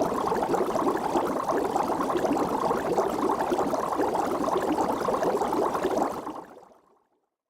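Water bubbling steadily, fading out near the end.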